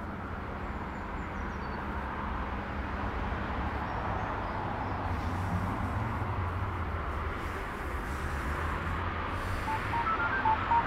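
Steady outdoor background noise with a low rumble. Near the end, short beeps of a phone keypad being dialled begin.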